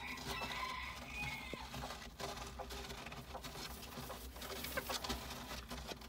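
Japanese bantam (chabo) chickens: a pitched call lasting about a second and a half near the start, then light scratching and clicking of feet on rice-husk litter.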